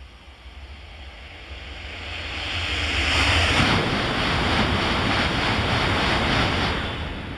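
E5-series Shinkansen passing through the station at speed without stopping: a rushing noise that builds over the first few seconds, holds at its loudest for about four seconds as the cars go by, and eases off near the end.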